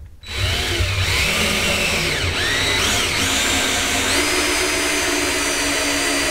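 Power drill-driver driving a screw through a timber support plank into the wooden pond wall. Its whine starts about a quarter second in, changes pitch over the first few seconds as the screw bites, then holds steady.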